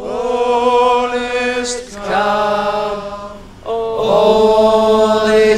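Slow singing in long held notes, in three phrases with short breaks between.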